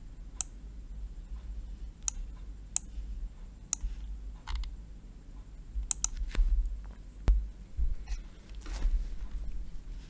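Scattered sharp clicks from computer mouse and keyboard use, irregularly spaced about a second apart, over a low steady hum.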